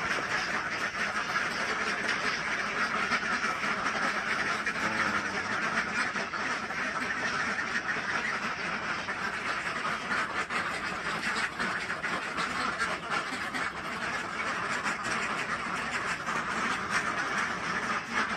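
A large flock of Pekin ducks quacking continuously in a dense, overlapping chorus as they crowd in at feeding time.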